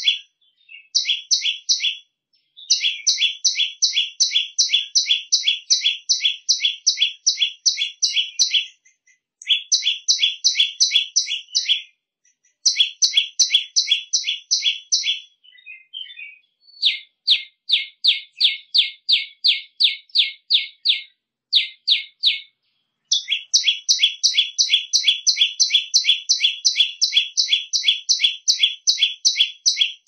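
Prenjak lumut tailorbird calling: a shrill series of rapid, evenly repeated notes, about four a second, in runs of several seconds broken by short pauses.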